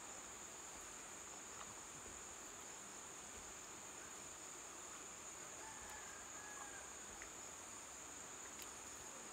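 Faint, steady, high-pitched insect chorus, unbroken throughout.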